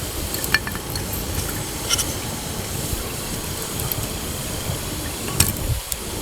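Wood campfire burning, crackling with a few sharp pops over a steady low rushing noise.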